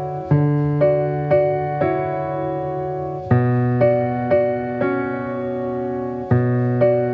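Background piano music: a gentle melody of notes struck about twice a second over low held chords, the chord changing about every three seconds.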